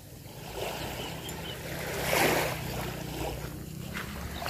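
Small waves lapping on a sandy shore, the wash swelling to a peak about two seconds in and rising again near the end, over a faint low steady hum.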